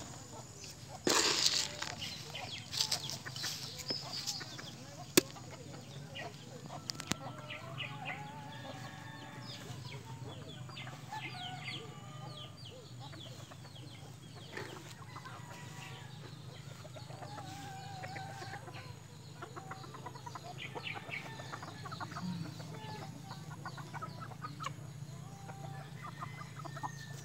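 Backyard roosters and hens clucking on and off, with a short loud rustle of wings about a second in.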